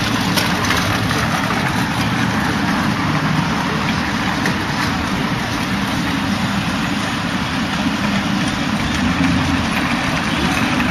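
Steady street traffic noise, led by a motor vehicle engine idling close by, with a constant low rumble.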